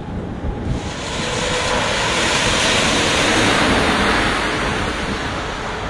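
Storm wind rushing, swelling up about a second in and easing off again toward the end.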